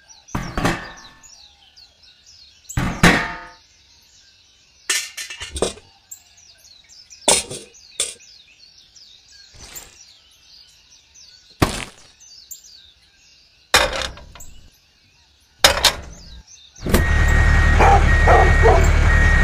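Sharp knocks and clicks every one to three seconds as small toy pieces, a cement bag and a trowel, are handled and set down in a toy trailer, over faint bird chirping. Near the end comes a loud, steady, engine-like rumble lasting about three seconds as the toy tractor moves.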